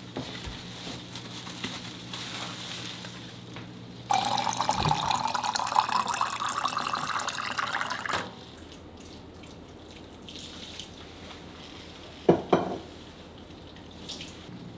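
Water running from a kitchen tap into a glass jar for about four seconds, then stopping. A single short knock follows near the end.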